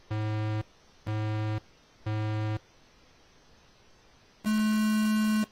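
Race start countdown: three short, buzzy electronic beeps a second apart, then a single longer and higher-pitched beep that signals the start.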